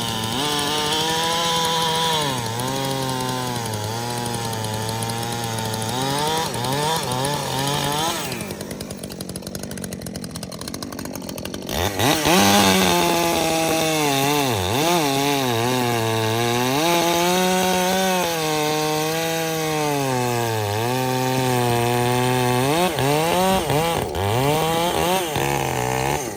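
Gas two-stroke chainsaw cutting wood, its engine pitch dipping as it loads up in the cut and climbing back, again and again. About eight seconds in it eases to a lower, quieter speed for a few seconds, then goes back to full throttle in the cut about twelve seconds in.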